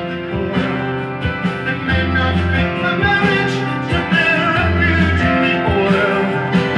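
A vinyl record playing on a Dual 1257 turntable: a rock song with singing over a steady beat.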